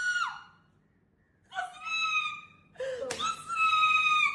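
High-pitched, drawn-out squeals from a person's voice. One cry falls away just after the start, and after about a second of silence two more held cries follow, each lasting about a second.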